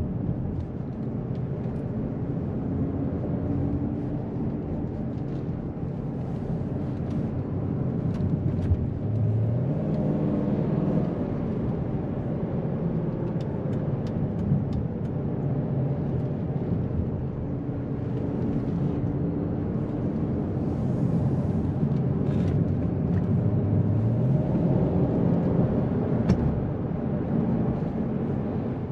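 The 4.4-litre V8 of a 2007 Volvo S80 running under way, heard from inside the cabin over steady tyre and road noise. Its note rises twice as the car accelerates, with a few light clicks along the way.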